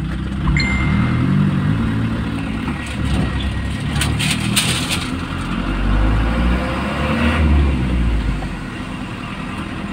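Vehicle engine running in slow traffic, its low drone rising and falling in pitch as it pulls away. A few brief knocks and rustles come about four seconds in.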